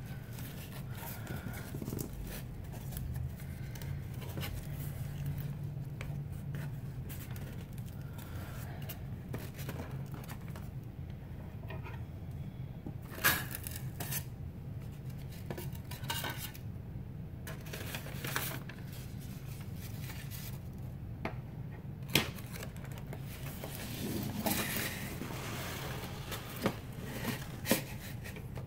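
A cardboard shipping box being unpacked by hand: scissors cutting tape, cardboard flaps and a foam liner scraping, newspaper packing rustling. A few sharp clicks and knocks come through, the loudest about halfway through and again about three-quarters through, over a steady low hum.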